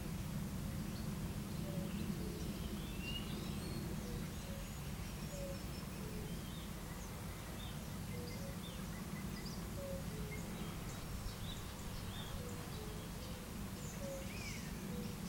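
Outdoor wetland ambience: a steady low rumble, with scattered faint songbird chirps and short low notes that repeat every second or so from distant birds.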